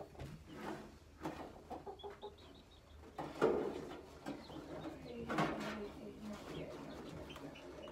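Broody hen in a metal nest box clucking and growling as a gloved hand reaches under her for her eggs, with two louder outbursts about three and a half and five and a half seconds in: the hen protesting at being disturbed on her eggs.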